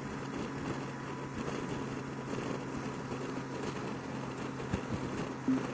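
Honda Gold Wing F6B's flat-six engine running steadily at highway cruising speed, a constant hum mixed with road and wind noise.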